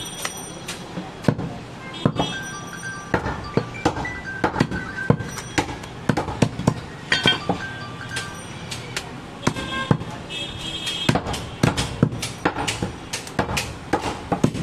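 Heavy meat cleaver chopping goat meat on a wooden chopping block: irregular sharp thunks, sometimes several a second, with light chime-like music behind.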